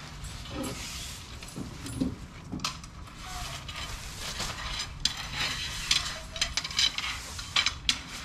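Irregular light clicks and knocks of small hard objects being handled, over a steady hiss; the clicks come thicker in the second half.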